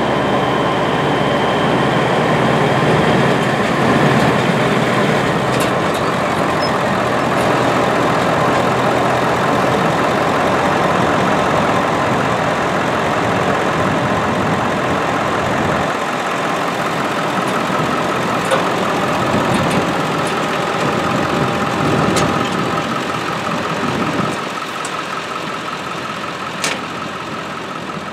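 Pickup truck engine running steadily as it tows a loaded seed tender trailer across a field, growing quieter over the last few seconds.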